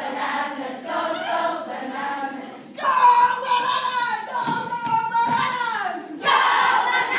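A group of children singing and chanting a camp song together. About three seconds in they hold a long loud note, which slides down in pitch near the end.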